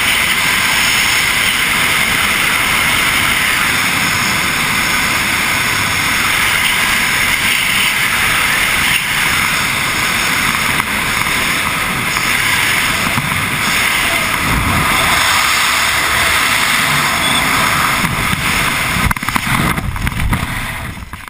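Rushing wind of freefall skydiving buffeting a helmet-mounted camera's microphone, a loud steady rush. Near the end the rush turns uneven and dies away.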